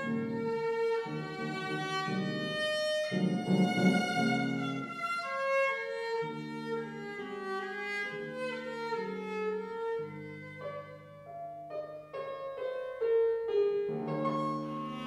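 Piano trio on period instruments, a violin and a cello with gut strings and a fortepiano, playing classical chamber music in sustained, bowed lines over fortepiano accompaniment.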